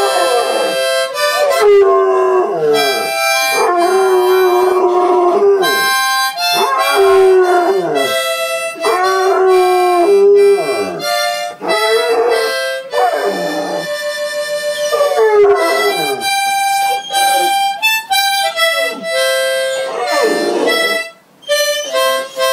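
A Chesapeake Bay Retriever howling along to a harmonica playing a slow tune. The howls come one after another, each sliding down in pitch, over the harmonica's steady held notes.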